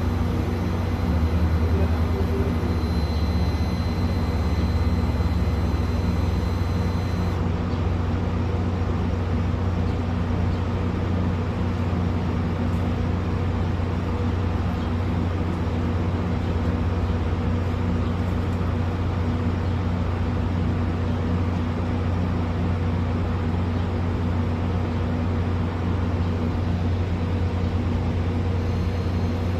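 A steady, unchanging low mechanical hum, a motor or engine running.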